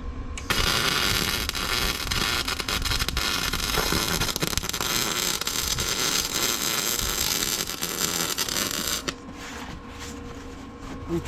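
Arc welding on galvanized steel pipe: a dense, crackling hiss that starts about half a second in and cuts off abruptly about nine seconds in.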